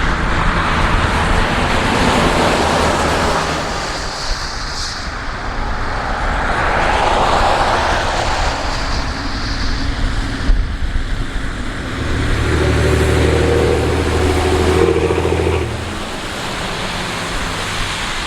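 Vehicle driving on a rain-wet road: steady tyre and road noise, with a deeper steady engine drone for about three seconds a little past the middle.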